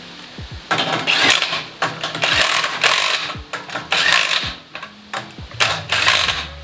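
Cordless impact driver running in several short bursts, driving in the bolts that fasten an aluminium fender to a kit car's suspension.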